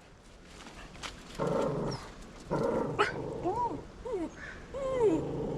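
A dog growling twice briefly, then whining in several short rising-and-falling whimpers.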